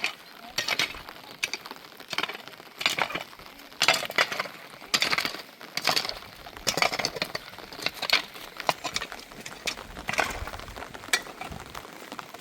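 A series of irregular clinks and knocks of hard objects striking one another, about one or two a second.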